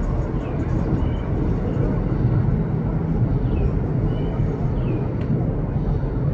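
Steady low rumble of city street and traffic noise, heard from high above the street. Faint short high chirps come in pairs every couple of seconds.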